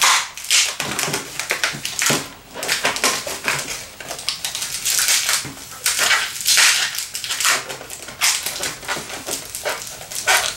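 Inflated latex 260 modeling balloon squeaking and rubbing under the hands as it is twisted into two small pinch-twist bubbles, in an uneven run of squeaks and rubs.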